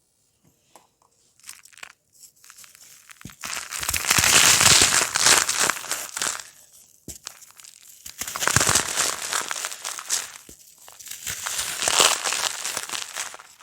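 Dry, crunchy cake being crushed and crumbled: dense crackling and crunching that starts with a few faint crackles and swells loud three times, each for a few seconds.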